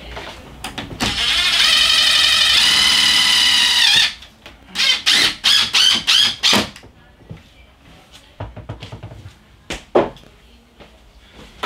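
Cordless drill driving 3-inch screws into a window frame: one steady run of about three seconds, then a quick string of about five short trigger pulls, and a brief burst near the end.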